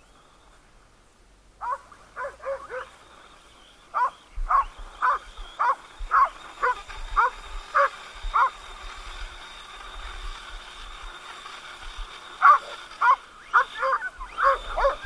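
Dogs barking in short, repeated yaps, in bouts: a few about two seconds in, a quick run of about two a second until roughly eight seconds, and another run near the end. A faint steady high whine runs underneath in the middle stretch.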